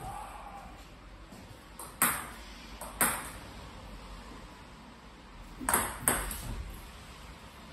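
Sharp clicks of a table tennis ball: short double ticks about two and three seconds in, then, near the end, a high-toss long serve: the bat striking the ball and the ball bouncing on the table.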